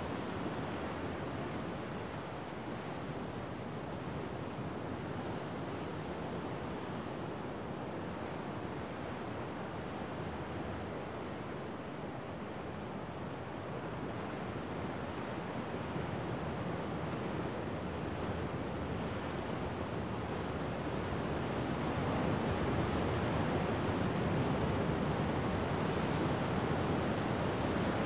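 Rough winter sea waves breaking and washing over shoreline rocks, a steady roar of surf that swells louder about three-quarters of the way through as a bigger wave breaks.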